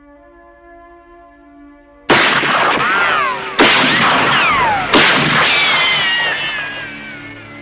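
A soft sustained music pad, then three loud cinematic impact hits about a second and a half apart, each followed by a ringing tail whose pitch bends and falls. The last tail fades slowly near the end.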